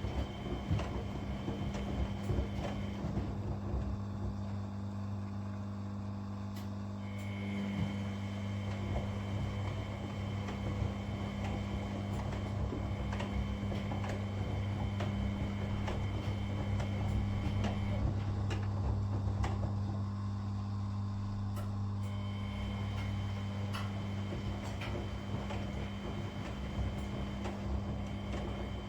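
Washing machines running a wash cycle: a steady low hum with a few faint clicks.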